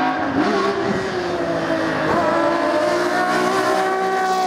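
Rally car engine held at high revs, a loud steady note that climbs slightly in pitch.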